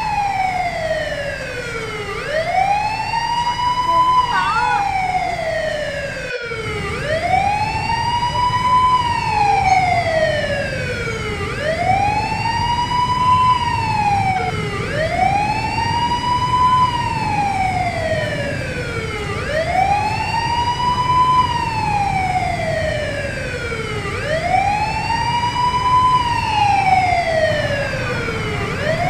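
Fire truck siren wailing, sweeping up in pitch and sliding back down about every four seconds over a low engine rumble. The sound cuts out for an instant about six seconds in.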